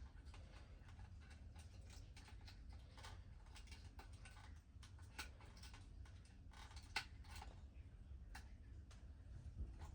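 Near silence with faint, scattered clicks and taps of a plastic alarm keypad and its wires being handled during wiring, over a low hum; the sharpest click comes about seven seconds in.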